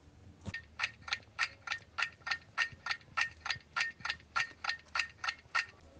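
Clock-ticking sound effect marking answer time: a steady run of short ticks, about three a second, starting about half a second in.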